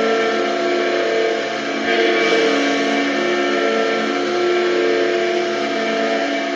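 Carolina Hurricanes arena goal horn sounding, a held chord of horn tones that shifts slightly in pitch, over a steady wash of crowd noise.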